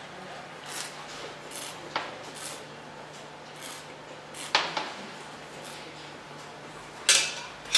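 Wine glasses handled while white wine is sipped: quiet sips and a few light clicks and knocks of glass, the loudest near the end.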